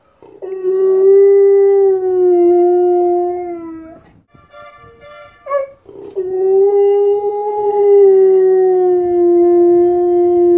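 Siberian husky howling: two long, steady howls of about four seconds each, with a short break between them. The howling is set off by a street vendor's horn.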